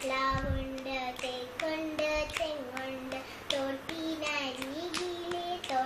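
A single voice singing a Malayalam poem, holding long notes that glide up and down, with a short low thump near the start.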